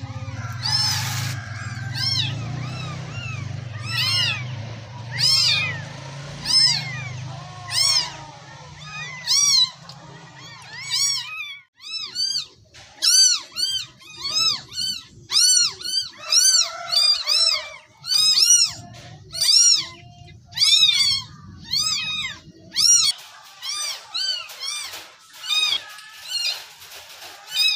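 Hungry kitten meowing over and over in short, high-pitched calls, about one a second, coming faster in the middle.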